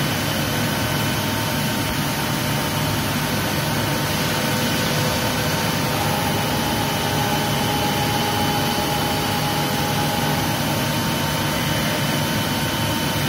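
Large CNC gantry milling machine with a right-angle milling head running: a steady mechanical hum and hiss carrying several constant whining tones, with one more whine joining about six seconds in.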